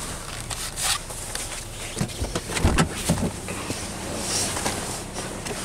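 A car door being opened from inside and someone climbing out, with a few clunks and thumps about two to three seconds in, over the steady low hum of the idling engine.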